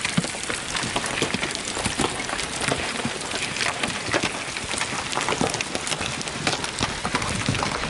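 A dense, steady patter of many small impacts, crackling without a break.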